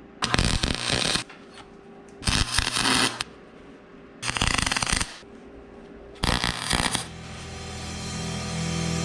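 Four short noisy bursts of work on sheet metal, each about a second long and about two seconds apart. Guitar music fades in and grows over the last couple of seconds.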